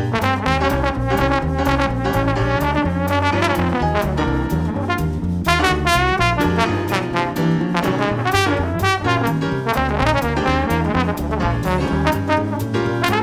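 Background music: an upbeat jazzy tune led by brass instruments over a steady bass line.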